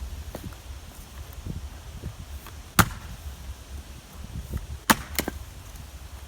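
Fiskars 36-inch splitting axe striking wood: two sharp chops about two seconds apart, the second followed quickly by a lighter knock.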